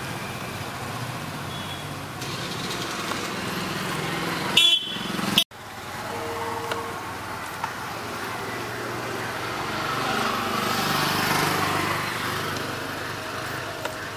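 Steady background noise like distant street traffic, with a brief high horn-like toot about four and a half seconds in.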